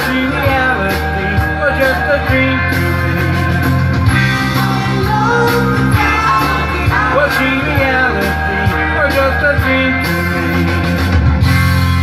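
Pop-rock music with a sung vocal over a backing of sustained bass notes and a steady beat.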